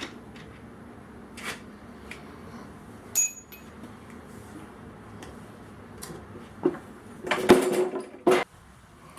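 Metal clinks and clatter of a ratchet, socket and a metal cookie pan being handled while the oil is drained from a Briggs & Stratton 3.5 hp mower engine. Scattered light clicks, one ringing clink about three seconds in, and a louder clattering, scraping stretch near the end.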